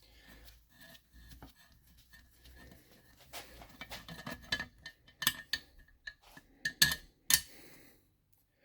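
Metal tools clinking and knocking against a Tomos moped engine case during its strip-down, as stubborn, tight bolts are worked loose. The clicks grow busier partway through, with a few sharp, louder knocks in the second half.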